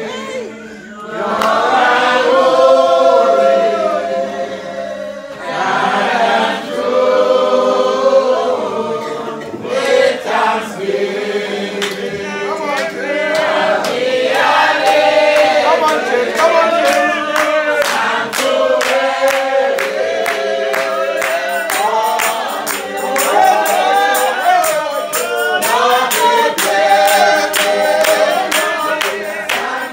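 Spiritual Baptist congregation singing a hymn together in chorus, mixed voices. In the second half a steady beat of sharp strikes, about two a second, joins the singing.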